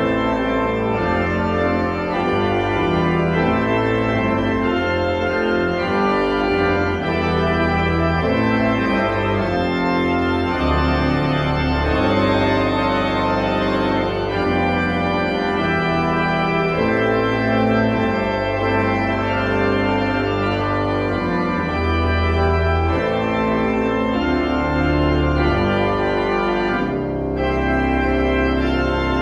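Church pipe organ playing held chords over a moving bass line.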